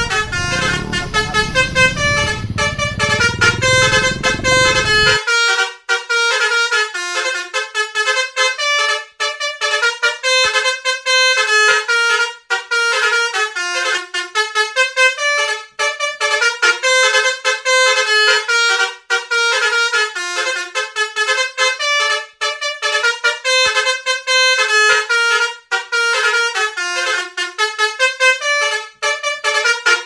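A tour bus's multi-tone 'telolet' (basuri) horn plays a fast melody of short notes that keep stepping up and down in pitch. Engine and road rumble lie underneath for the first five seconds, then drop out suddenly.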